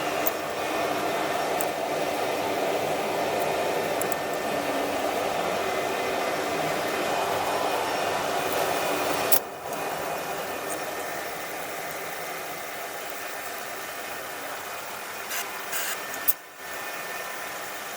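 A small electric power tool motor running steadily with a rushing hiss. The sound breaks off sharply twice, about halfway through and again near the end.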